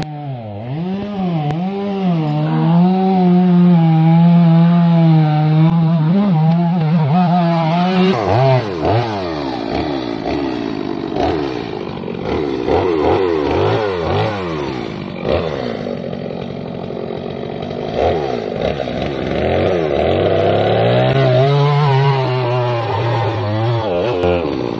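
Two-stroke gas chainsaw cutting into a big log. For the first several seconds the engine holds a steady high pitch. It then rises and falls over and over as the throttle is worked through the cut, and settles to a steady pitch again near the end.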